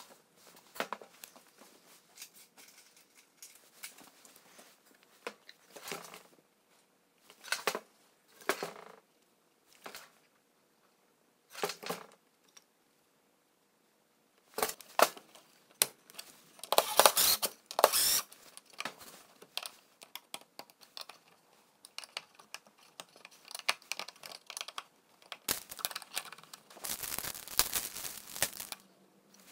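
Intermittent clicks, scrapes and rustles of hands working on a wooden electrical outlet box: the box being handled, a marker writing on the outlets, and plastic crinkling. The busiest stretches come about halfway and near the end.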